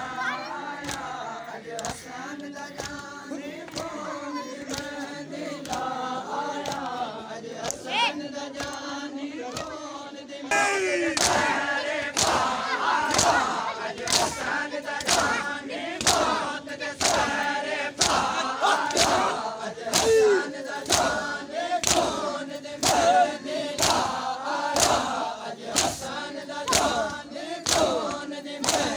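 Shia mourners doing matam: a crowd of men chanting a noha in unison while beating their chests with open hands in a steady rhythm, about one and a half strikes a second. The chanting and strikes get louder about ten seconds in.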